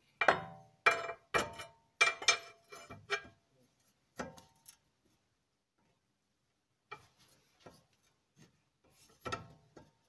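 Clicks and knocks from the front steering and suspension of a late-1990s Toyota Sienna as the tie rod and nearby links are rocked by hand to check for play: about six sharp knocks close together in the first few seconds, one more about four seconds in, then fainter clicks with a louder pair near the end.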